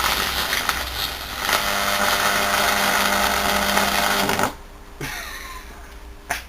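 Reversing-valve solenoid coil driven from a microwave oven transformer's high-voltage winding, giving a loud mains buzz with a harsh hiss over it as the coil is overdriven to burn out. The buzz cuts off abruptly about four and a half seconds in, leaving it much quieter with a single knock.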